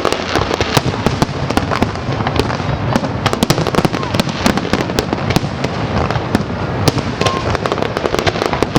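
Fireworks display: a dense, irregular string of bangs and crackles from bursting shells, several sharp reports a second.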